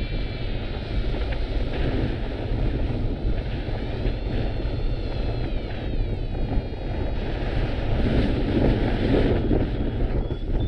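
Strong wind buffeting the microphone, gusting hardest near the end, with thin whistling tones sliding up and down in pitch over it.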